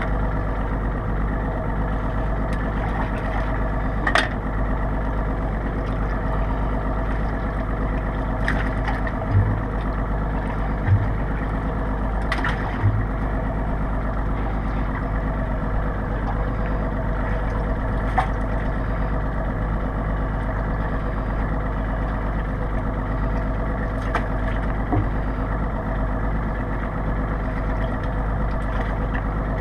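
Boat motor idling steadily, with a few sharp clicks and low knocks over it.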